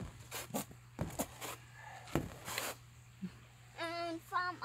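A run of short clicks and scrapes from paint being squeezed out of a plastic squeeze bottle and a metal palette knife being worked on a canvas board, then two short hummed vocal sounds near the end.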